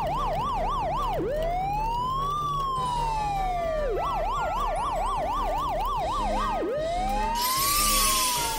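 Electronic police siren going between a fast yelp and a slow rising-and-falling wail, each twice. A short hiss comes in near the end.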